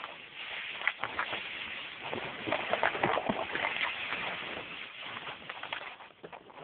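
Footsteps and rustling through forest undergrowth: a dense, irregular run of crackles and snaps from dry leaves and twigs.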